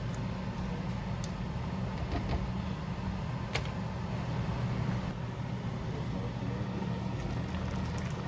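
Shrimp and vegetables simmering in coconut milk in a metal pan, giving a few faint pops and clicks over a steady low kitchen hum.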